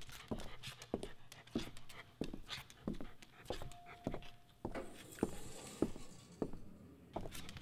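Steady footsteps on a hard floor, with a dog walking alongside and panting.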